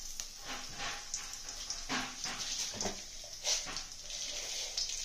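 Hot oil sizzling in a kadai as dried red chillies and tempering seeds fry for a tadka, with irregular sharp crackles and pops over a steady high hiss.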